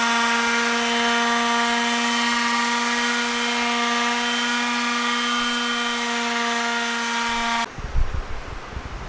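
DeWalt palm sander running steadily on a thin wooden fretwork piece, a pitched hum with a whine above it. It is switched off and stops abruptly about seven and a half seconds in, followed by a few low bumps as it is handled.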